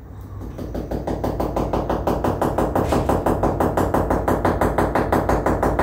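A nail being hammered: a fast, even run of about eight blows a second that grows louder over the first two seconds and stops abruptly near the end.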